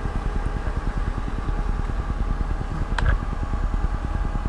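A steady mechanical hum and rumble runs throughout. About three seconds in there is a single small click as a wire's quick-disconnect connector is pulled apart by hand.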